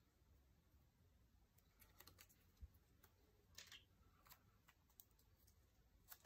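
Faint scattered clicks and a few soft rustles of hands handling planner paper and stickers on a desk, against near silence.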